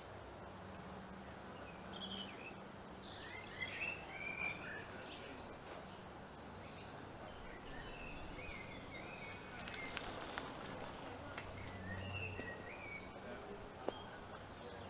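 Small birds chirping and singing in short phrases over steady outdoor background noise with a faint low hum. A single sharp click sounds near the end.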